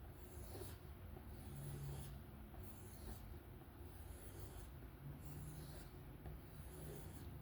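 Knife blade (Kizer T1, 154CM steel) drawn in slow, even strokes along a bare strop, a soft rubbing swish about once a second, to take off the remaining burr. A low steady hum runs underneath.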